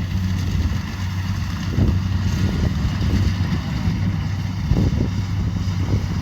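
Kubota DC70 Pro combine harvester's diesel engine running steadily under load, with a few short thumps from the machine about two and five seconds in.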